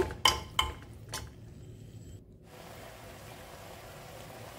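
A steel spoon clinks against an aluminium pressure cooker a few times while stirring lauki and chana dal, then the sound drops to a faint steady hiss from the pot.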